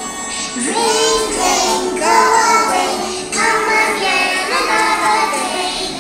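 A group of young children singing a nursery rhyme together, starting about half a second in.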